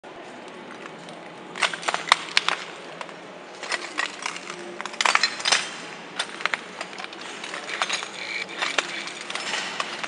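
Footsteps crunching over a floor of broken glass: irregular sharp clinks and crackles of shards cracking and grinding underfoot, starting about one and a half seconds in.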